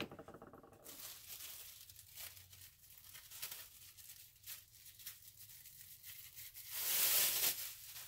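Thin plastic liner crinkling as it is handled and fitted into a wooden soap loaf mold, with a louder rustle about seven seconds in.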